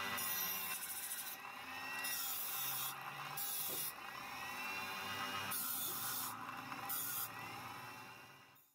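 Abrasive rubbing and scraping on the rusty sheet metal of an antique oil lantern, in repeated strokes roughly a second apart, fading out near the end.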